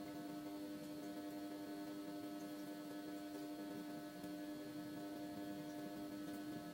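Steady electrical hum, one strong low tone with fainter higher tones above it, unchanging throughout.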